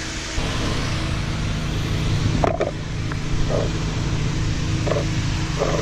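A vehicle engine running steadily at idle, a low even hum that starts about half a second in, with a few short faint higher sounds over it.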